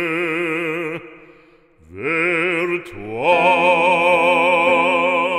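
Operatic male voice singing long held notes with wide vibrato in a French sacred song. The first note fades about a second in, and after a short breath he scoops up into two more long notes.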